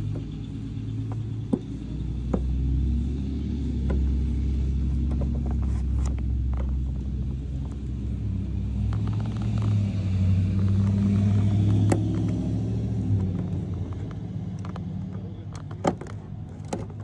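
A low, steady vehicle engine rumble that swells twice, with scattered sharp clicks and knocks from a plastic retaining clip and trim being worked loose by hand.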